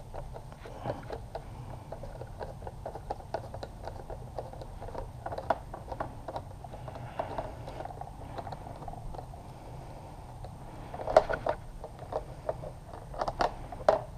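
A screwdriver turning out the Torx screws of a motorcycle's plastic windscreen: a run of small, irregular clicks, with a few louder knocks and rattles about eleven seconds in and again near the end.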